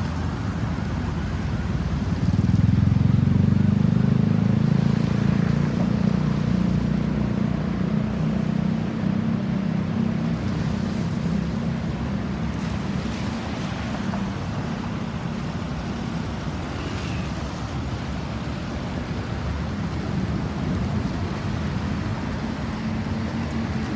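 Road traffic noise with a vehicle's low engine rumble that swells about two seconds in and then slowly fades as it passes.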